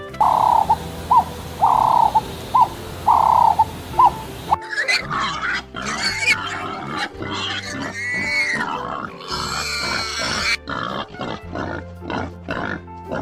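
Animal calls over background music: a run of short repeated calls for the first four seconds or so, then, after an abrupt change, a busier mix of calls and noises.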